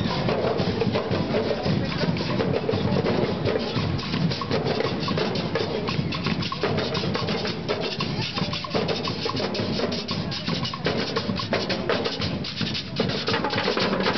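Marching band drum line playing a marching beat on bass drums and snare drums, with many fast, closely packed strokes.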